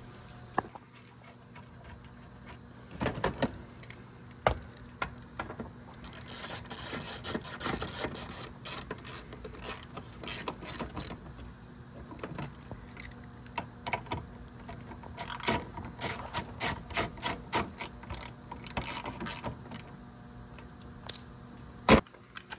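Metal tools and parts being handled during work on a car engine: scattered clinks and rattles, two stretches of rapid clicking, and one sharp metallic knock near the end.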